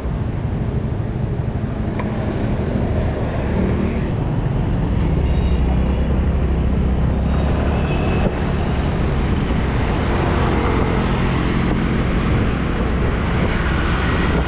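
Yamaha 125 cc scooter engine pulling away from a stop and accelerating, with a low rushing rumble that grows louder as speed builds, and traffic around it.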